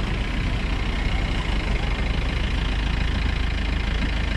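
Off-road vehicle's engine running steadily.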